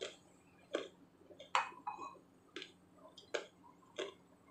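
Eating a crisp raw vegetable salad with wooden chopsticks: a sharp, crisp click about every three-quarters of a second, six in all.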